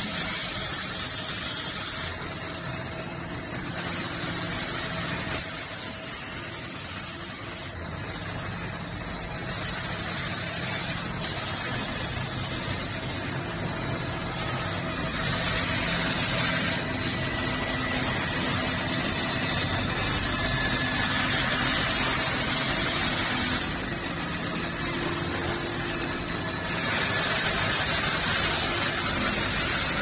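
Automatic padlock assembly machines running: a steady mechanical drone with a high hiss that grows louder for stretches of a few seconds at a time.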